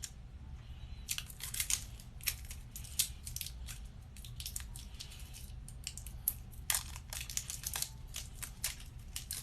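Mascara packaging being torn and crinkled open by hand: irregular runs of sharp crackles and tearing, with brief pauses between clusters.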